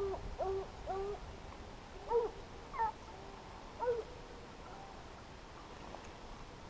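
Pack of hunting hounds baying, a run of short, bending yelps in the first four seconds, then falling quiet.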